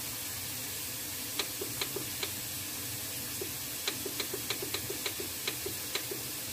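Frigidaire electric range's touchpad timer button pressed repeatedly to set the timer: a few separate clicks about a second and a half in, then a quicker run of about a dozen clicks from about four seconds to six.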